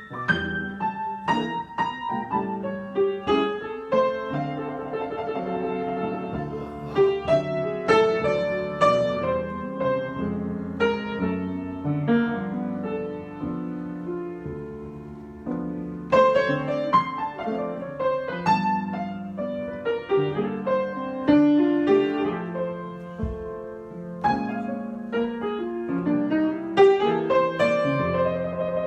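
Solo piano improvisation: chords and melody notes struck and left to ring, with louder accented phrases now and then.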